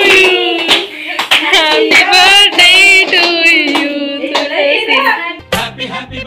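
A group clapping by hand while voices sing a birthday song. About five and a half seconds in, this gives way to recorded music with a bass line.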